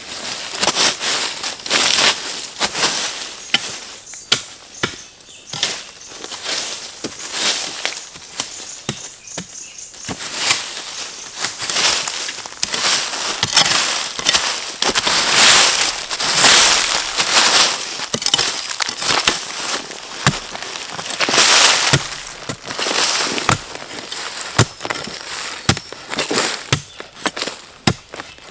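Rustling, crunching and snapping of dry plant material, with many sharp knocks and cracks in quick succession and louder rustling stretches in places.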